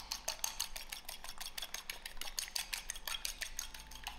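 An egg being beaten in a bowl: a utensil clicks rapidly and evenly against the bowl, about nine strokes a second.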